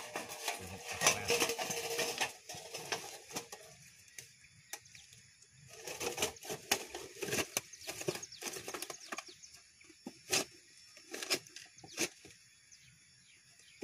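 Corrugated zinc sheet being bent around an oil palm seedling, with irregular metallic clicks, taps and scraping as the thin metal flexes and is pressed into a tube. The handling is busiest at the start and again around six to eight seconds in, with single sharp clicks between.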